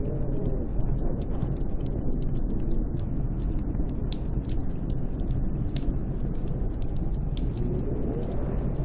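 Snowstorm wind blowing steadily, with a low rushing roar and a faint whistling howl that rises and falls near the start and again near the end. Sharp irregular crackling clicks run throughout.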